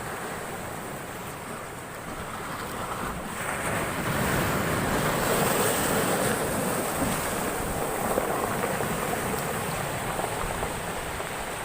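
Large storm wave breaking and rushing in over the shore, the surge building about three seconds in, loudest midway, then slowly easing off.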